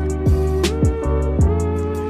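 Background music with a steady beat: regular hi-hat ticks and deep kick-drum strokes under held notes.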